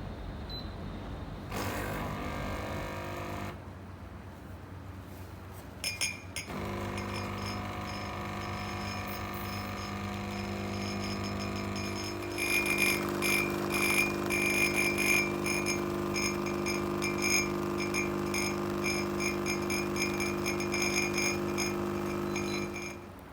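A HiBREW CM6863 espresso machine's 20-bar pump buzzing as it brews a double shot: a short buzz about two seconds in, then a steady buzz from about six seconds in. About twelve seconds in it grows louder with a spluttering crackle, and it stops suddenly near the end.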